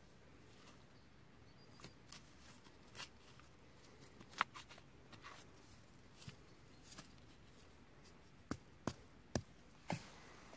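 Faint scattered clicks and rustles as burst cardboard firecracker casings are handled on dry, leafy ground, then four sharper short knocks near the end.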